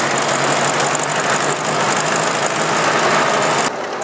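Ford Jubilee tractor's four-cylinder gasoline engine running steadily as the tractor drives, heard from the driver's seat. Near the end the sound drops suddenly to a quieter level.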